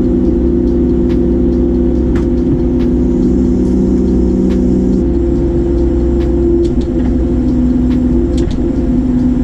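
Diesel engine of a large farm machine running steadily, its hum shifting in pitch about halfway through.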